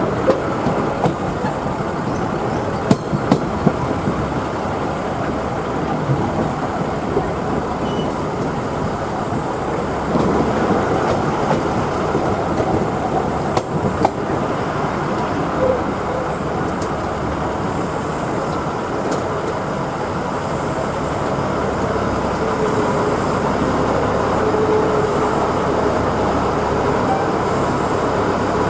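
Train moving along the track: a steady rumble of rail and running noise, with a few sharp clicks about three seconds in and again midway.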